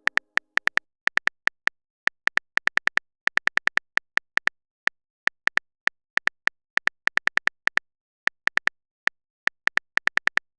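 Phone keyboard typing sound effect: a run of short, sharp tapping clicks at an uneven pace, several a second, with brief pauses.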